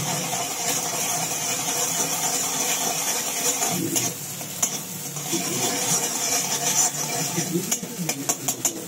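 Beaten egg sizzling in hot oil in a metal wok while a spatula stirs and scrapes it. Near the end it turns to quick repeated scrapes and taps of the spatula against the wok.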